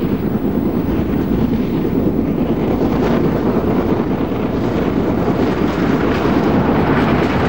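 LNER A3 Pacific No. 4472 Flying Scotsman, a three-cylinder steam locomotive, working a passenger train with a dense rumble of exhaust and running noise that grows louder as it approaches.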